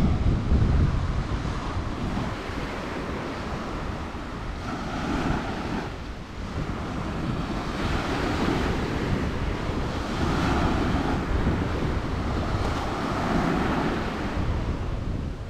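Ocean waves breaking and washing up a beach, a continuous surf noise that swells and eases every few seconds, loudest at the start.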